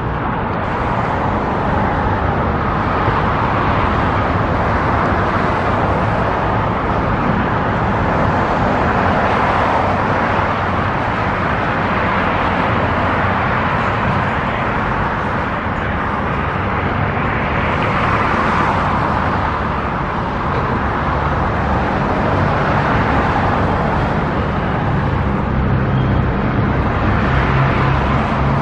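Road traffic running steadily, swelling every several seconds as cars pass, with a heavier vehicle's lower engine hum near the end.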